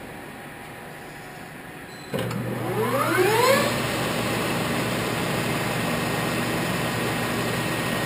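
American Machine Tool Turnmaster 13 x 40 engine lathe starting up about two seconds in: a rising whine as the spindle spins up to 1500 RPM over about a second and a half, then humming steadily at speed.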